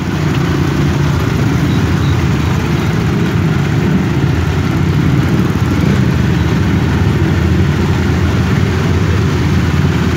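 Motorcycles running in a slow group ride, heard from one of the moving bikes: a steady low engine rumble mixed with the noise of riding.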